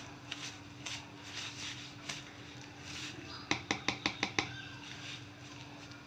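Wire whisk stirring palm pulp into rice flour in a plastic bowl, soft repeated scraping strokes. About three and a half seconds in comes a quick run of about six sharp clicks as the whisk knocks against the bowl.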